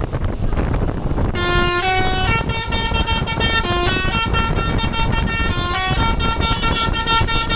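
Bus telolet horn of the Basuri type playing its tune: several air-horn tones sounding together and stepping from note to note every fraction of a second. It starts about a second and a half in, after a rumble of noise.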